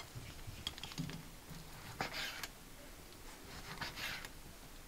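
Kitchen knife cutting raw chicken breast on a plastic cutting board: a few soft knocks of the blade on the board and brief scraping slicing strokes.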